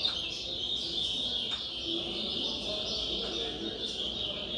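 Dense, unbroken chorus of many caged songbirds singing at once in a song-contest round, over a low background murmur.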